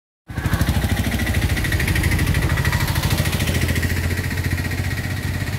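An engine idling steadily nearby, a rapid even chugging with a thin high whine over it.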